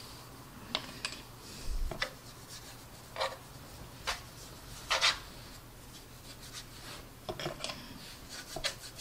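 Paintbrush rubbing a panel-line wash onto the plastic surface of a scale model aircraft kit: a series of short, scratchy brush strokes with brief pauses between them.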